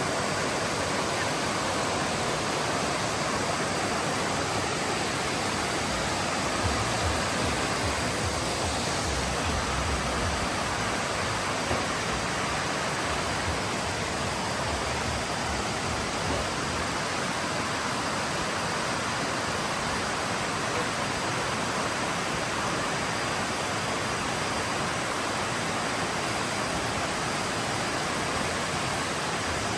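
Waterfall water rushing as a steady, even roar. There is a brief low rumble about seven seconds in.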